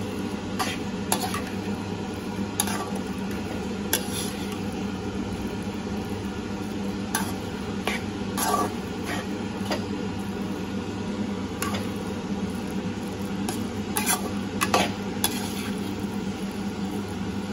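Metal spatula stirring and scraping crumbled paneer bhurji in a frying pan, with irregular clicks and scrapes of metal on the pan over a steady low sizzle and hum.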